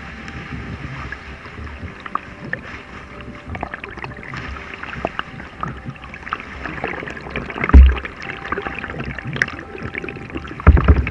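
Kayak paddling: water splashing and dripping off the paddle blades with each stroke, with many small clicks. Two heavy low thumps, one about eight seconds in and one near the end.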